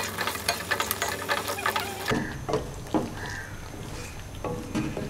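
Wooden spoon stirring thick creamy curry in a steel pot: quick clicks and scrapes against the pot, with a wet hiss. These come thick and fast for about two seconds, then the hiss drops and only scattered scrapes follow.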